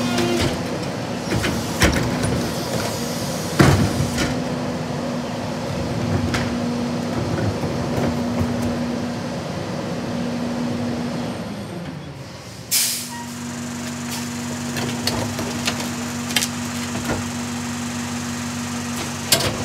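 Rear-loader garbage truck (Freightliner M2 106 with a Heil DuraPack 5000 body) running with a steady hum, with knocks from trash and bins. About eleven seconds in, the hum slides down in pitch, then a short sharp hiss of air sounds before the steady hum resumes.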